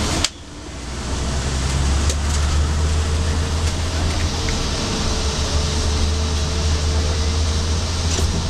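Steady low engine and road rumble heard from inside a moving vehicle driving in traffic. A sharp click just after the start, after which the sound drops and builds back up over about a second.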